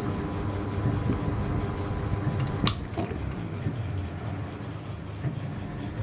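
Niga FC05-50 18-inch mini ceiling fan running, a steady motor hum over a low rumble, with one sharp click a little under halfway through.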